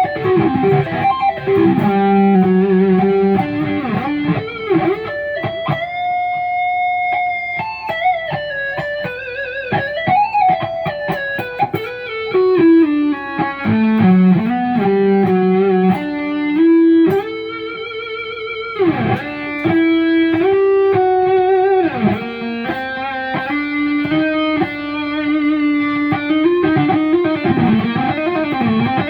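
Electric guitar with Kiesel Polarity active pickups (a Kiesel Crescent) playing a noodling single-note line with held notes, vibrato and slides, heard through a phone recording in the room.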